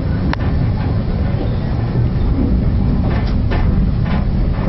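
Passenger railway carriage running along the track, heard from inside the compartment: a steady rumble with a sharp wheel click about a third of a second in and a few more clicks over the rail joints near the end.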